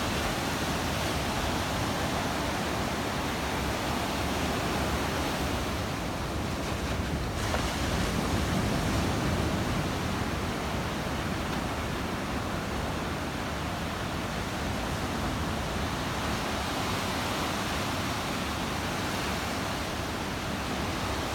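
Ocean surf washing in steadily, with a slight swell about eight seconds in, and some wind buffeting the microphone.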